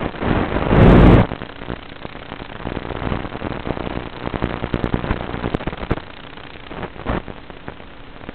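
Wind buffeting a small camera microphone, a heavy rumble that cuts off about a second in. After it comes a steady crackly hiss with a faint low hum and scattered clicks.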